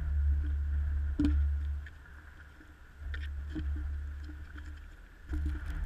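Wind rumbling over an action camera's microphone in gusts, with a few sharp thuds and scuffs of feet on concrete, the clearest about a second in.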